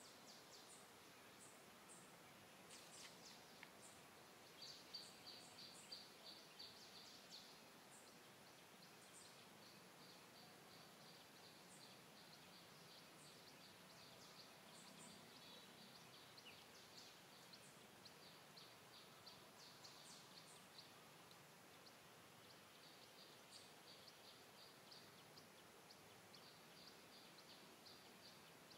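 Near silence: faint outdoor ambience with a soft background hiss and runs of short, high chirps repeated a few times a second, coming and going.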